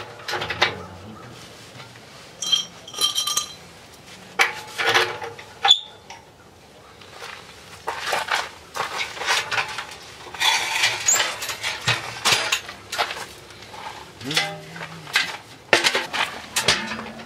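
Metal parts of a small tent wood stove clanking and rattling as they are handled and fitted together: stove-pipe sections and a wire rack knocked against the steel stove body, with a brief metallic ringing about two and a half seconds in.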